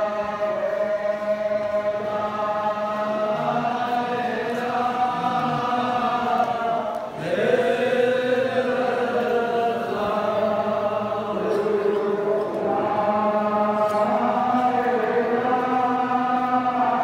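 A gathering of voices chanting devotional verses together in long, drawn-out held notes. The chant dips briefly about seven seconds in and starts again on a rising note.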